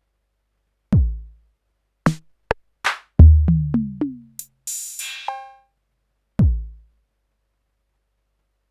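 Elektron Analog Rytm drum machine playing sparse, irregular hits with no steady beat: a deep kick, a few short snappy hits, a quick run of tom-like hits rising in pitch, a hi-hat tick, a crash-like noisy hit with a ringing tone in it, then another kick.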